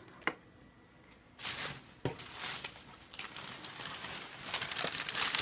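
Packing material rustling and crinkling as the next item is unwrapped from the box. A single sharp click comes just after the start, and the rustling begins about a second and a half in and grows busier toward the end.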